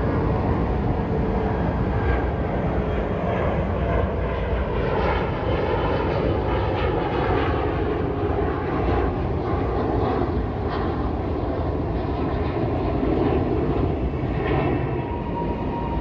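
Commercial jet airliner climbing out after takeoff, heard from the ground: a steady, low rumble of its jet engines.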